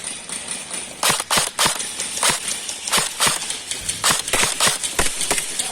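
Airsoft guns firing: a string of sharp cracks at uneven spacing, several a second, starting about a second in.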